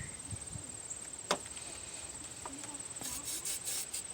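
A cricket chirping steadily and high in the background, with a sharp click about a second in and a few short hissing bursts near the end.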